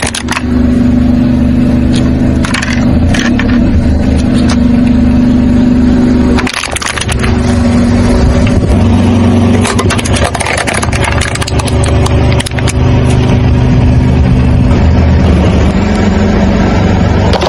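Car engine running steadily at idle, with a few sharp crackles a few seconds in as aluminium drink cans are flattened under the tyre. The engine sound breaks off briefly twice.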